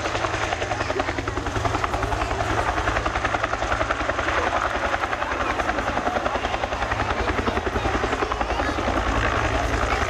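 Bell UH-1H Huey helicopter flying, its two-bladed main rotor beating with a fast, steady rhythmic thud over the turbine noise.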